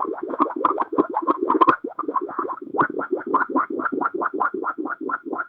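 Rapid, evenly repeating distorted synthesizer-like pulses, about six a second, heard as electronic music rather than water boiling.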